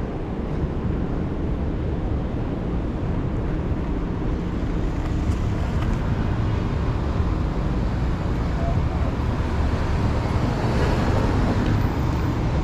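Steady rumbling road noise of inline skate wheels rolling over asphalt, mixed with wind buffeting the microphone and the hum of city traffic.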